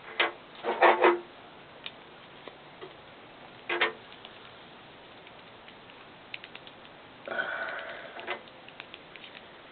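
Small plastic model-kit parts clicking and tapping as they are handled and pried at: a few sharp clicks in the first second, another about four seconds in, light ticks, then a longer rough stretch of handling noise near the end.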